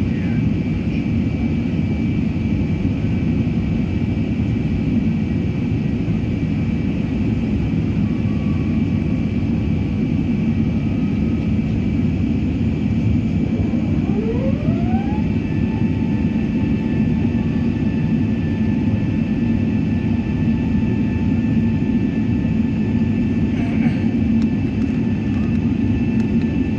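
An Airbus airliner's jet engines heard from inside the cabin as a loud, steady roar during the climb after takeoff. About fourteen seconds in, a thin whine rises in pitch and then holds steady over the roar.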